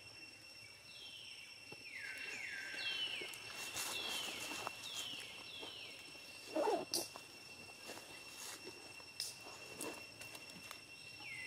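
A run of short, high animal calls, each sliding down in pitch, about one every two-thirds of a second for several seconds, then a single lower, brief call a little past the middle. A steady high whine runs underneath.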